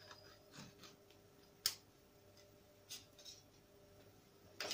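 Foil lid being peeled off a plastic dessert pot: faint rustling with a few sharp, unevenly spaced clicks, the loudest a little under two seconds in.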